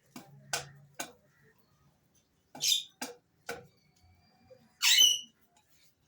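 Alexandrine parakeet calling: short, sharp clicks and chirps in two quick groups of three, then one loud, harsh squawk about five seconds in.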